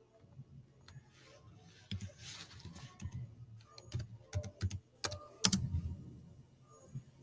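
Irregular clicks and taps of typing on a laptop keyboard, with a louder knock about five and a half seconds in.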